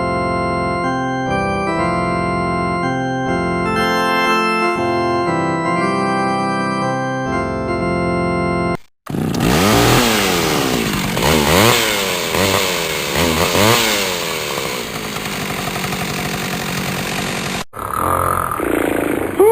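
Organ-like keyboard music of held chords for about nine seconds. After a brief break comes a loud, harsh buzzing sound effect whose pitch swoops up and down several times, like a revving saw. Near the end a shorter noisy passage begins, with a gliding tone.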